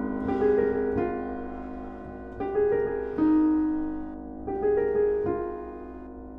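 Williams Allegro digital piano played with both hands: chords struck about once a second or so, each ringing and fading before the next.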